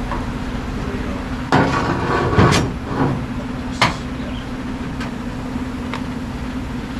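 Metal parts and tools being handled: a rough scraping shuffle, then a single sharp knock, over a steady low hum.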